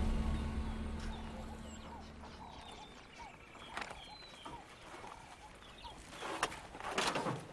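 Background music fading out over the first few seconds, giving way to outdoor ambience of birds chirping. A few louder, sharper sounds come near the end.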